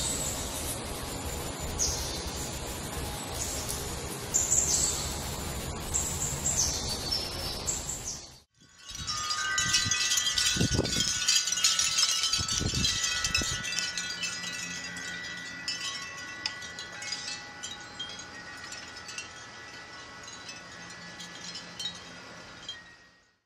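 Birds chirping in short high phrases over outdoor ambience, then, after a cut, wind chimes ringing with long overlapping tones that slowly fade. A few low rumbles of wind on the microphone come in about ten to thirteen seconds in.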